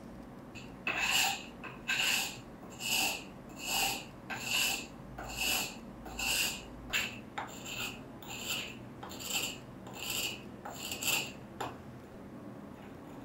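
Steel pincer's cutting jaw being sharpened on a wet sharpening stone: about a dozen back-and-forth strokes, roughly one a second, that stop near the end.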